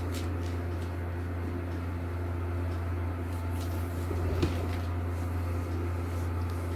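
Steady low hum, with a few faint clicks and a soft knock about four seconds in.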